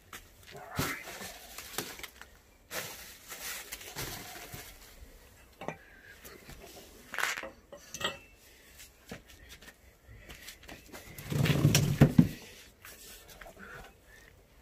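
Powder-coated steel tubes of a hammock stand being handled and laid on asphalt: scattered light metallic clinks and knocks with brief rustles of plastic wrapping. A louder, duller handling bump comes about three quarters of the way through.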